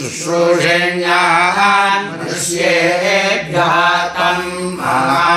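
Vedic students chanting Sanskrit mantras together in the word-by-word pada-pātha style, in a steady, even-pitched recitation with short breaks between phrases.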